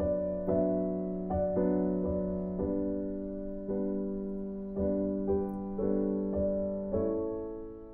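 Background piano music: gentle notes struck about once a second, each ringing and decaying, with the last note fading out near the end.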